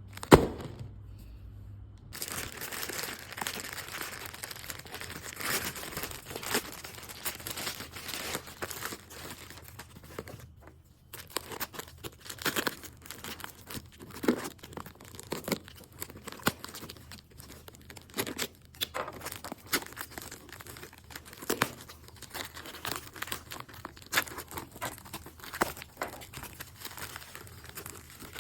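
Packaging being torn open and handled: irregular tearing, crinkling and rustling with many sharp ticks and taps. There is a sharp knock right at the start, the loudest sound, and a short pause about ten seconds in.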